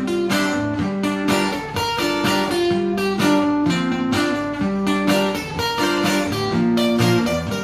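Acoustic guitar strumming chords in a steady rhythm, a quick run of strokes every beat.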